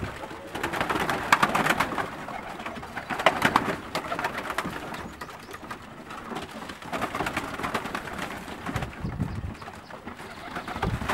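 English tippler pigeons flapping and scuffling in a small wooden loft, their wings clattering in several spells, with cooing among them.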